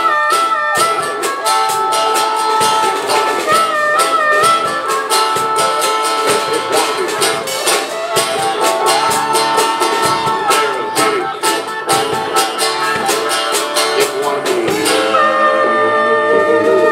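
Live country-blues band playing an instrumental passage: harmonica playing held, bending notes over acoustic and electric guitars, bass and a steady drum beat. About fifteen seconds in, the drums stop and the band holds a final chord.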